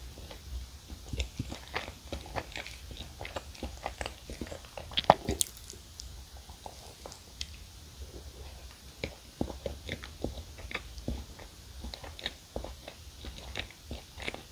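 Close-miked biting and chewing of a chocolate-coated Choco Pie, soft cake and marshmallow with small crunches and wet, sticky mouth clicks. A sharper, louder bite about five seconds in.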